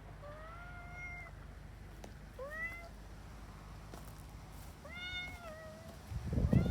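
Domestic cat meowing three times: two long calls of about a second each, with a short rising one between them, and a fourth call starting right at the end. A loud, low rumbling noise comes in near the end.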